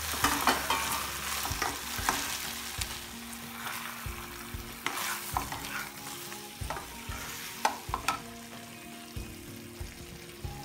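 Chilli chicken being stir-fried in a non-stick kadai: fried chicken pieces tossed with onion and capsicum in sauce, sizzling, while a wooden spatula scrapes and knocks against the pan in short, irregular strokes.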